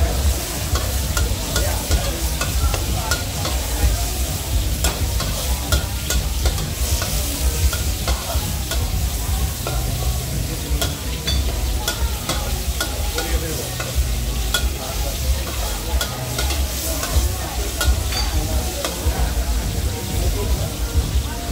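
Metal spatula scraping and clinking against a steel wok as chicken pieces are stir-fried in hot oil, with steady sizzling over a low rumble.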